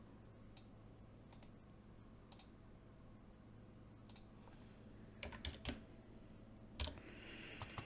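Near silence over a low steady hum, broken by a few faint clicks at a computer, with a small cluster of them about five and a half seconds in and a soft hiss near the end.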